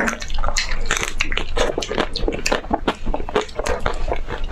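Close-up biting and chewing of ice cream with a crackly coating: dense, irregular crunching and crackling.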